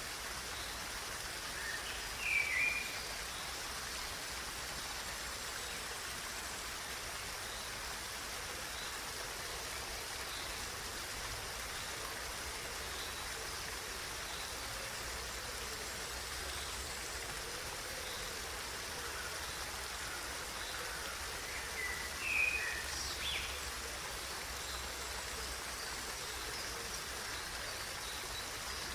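Running water flowing steadily, with a bird chirping briefly twice: once a couple of seconds in and again about three-quarters of the way through.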